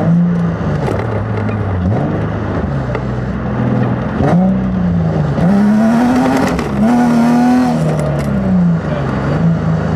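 Nissan 350Z's 3.5-litre V6 engine revving up and falling back several times under hard throttle, highest about two-thirds of the way through, with a rush of tire noise as the rear tires break loose and slide. The driver puts the loss of traction down to overinflated tires, 40 and 45 psi.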